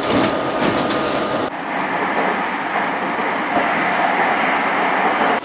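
Passenger train running on its rails, heard from inside the carriage: steady running noise with a few sharp clicks, changing abruptly about a second and a half in to an even, steady hiss and rumble.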